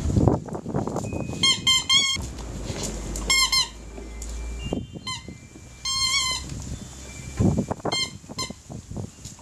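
Animals fighting: a dog and a warthog. There are short runs of rapid high-pitched squeals, five or so bursts, over scuffling and thumps.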